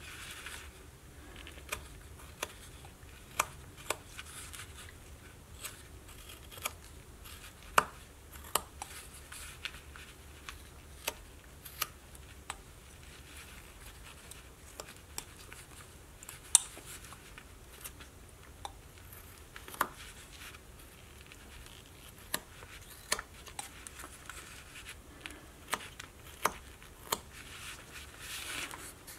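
Small hand-held carving blade cutting basswood: irregular short, sharp snicks and scrapes, about one or two a second, with a few louder cuts scattered through.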